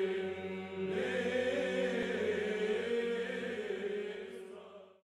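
Background music of sung chant in long held notes over a steady drone, fading out near the end.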